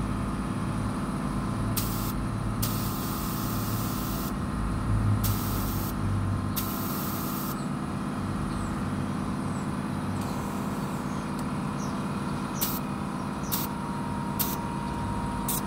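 Compressed air hissing through a tyre inflator into a car tyre in several bursts of about a second each, then four short blips near the end as the pressure is topped up, over a steady low hum.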